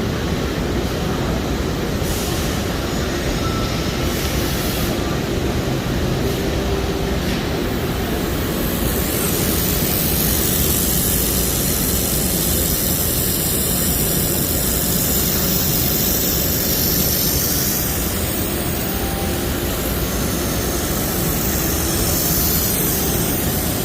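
Laser welding machine running with a steady low hum, joined about a third of the way in by a loud high hiss that lasts until just before the end: a weld pass with its shielding gas flowing.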